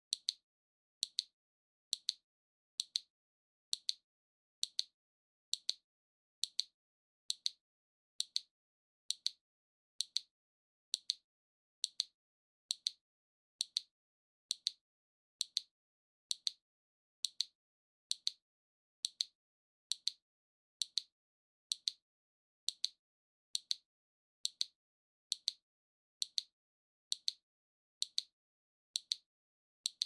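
Waving-arm mechanism of a maneki-neko (lucky cat) figurine ticking at an even pace, one sharp, high click about every second, with silence between.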